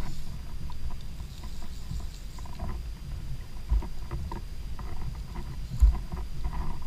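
Knocks, taps and small clicks from a kayak and a fly rod and reel being worked while a fish is on, over a steady low wind and water rumble. Two dull thumps are the loudest sounds, a little under four seconds in and near six seconds.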